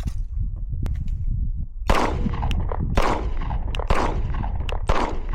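Four 9mm shots from a Glock 19 Gen 5 pistol, fired about one a second, starting about two seconds in.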